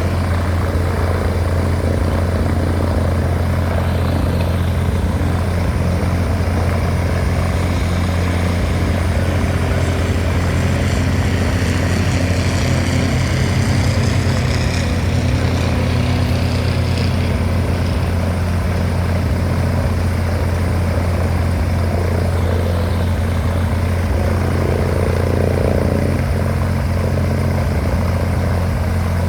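Cessna 180A's six-cylinder Continental O-470 piston engine and propeller running steadily at low power, a constant low drone.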